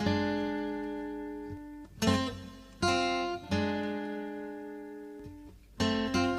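Background music on acoustic guitar: strummed chords left to ring and fade, three struck in quick succession in the middle, then faster, busier strumming near the end.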